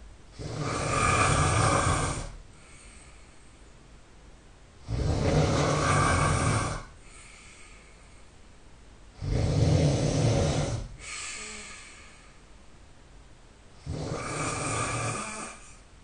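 A person snoring loudly in deep sleep: four long snores about four and a half seconds apart, with a softer breath between them.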